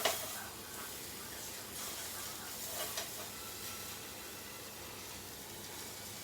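Tofu frying in hot oil with a steady sizzle, with a sharp knock at the very start and a lighter one about three seconds in.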